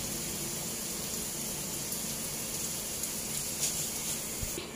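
Chicken and rendang spice paste frying in a covered wok: a steady, even sizzle.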